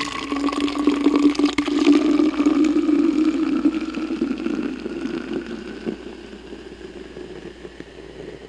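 Carbonated grape drink being poured from a can into a cup. It runs as a steady stream whose pitch rises slowly as the cup fills, and the stream thins and gets quieter over the second half.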